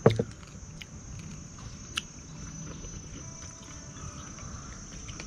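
Insects chirring in a steady high drone, with a sharp clack right at the start and a few lighter clicks of chopsticks against porcelain rice bowls.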